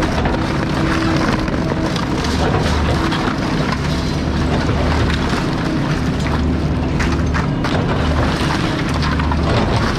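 Excavator's diesel engine running steadily under load, with scattered cracks and clanks of shed debris being broken and handled, a cluster of them about seven seconds in.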